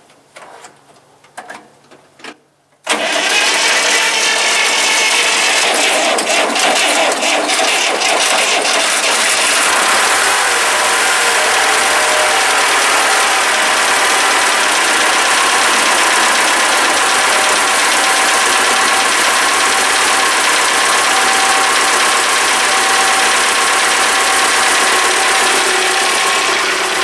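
T-40AM tractor's diesel engine starting: it catches suddenly about three seconds in and runs loudly, uneven for the first several seconds, then settles into a steady run.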